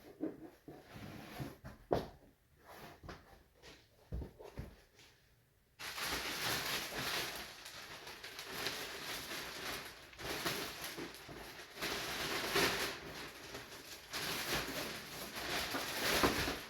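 Car floor mats being handled and pulled from their plastic bag. Scattered rustles and knocks come first, then from about six seconds in a continuous loud rustling of the packaging that cuts off at the end.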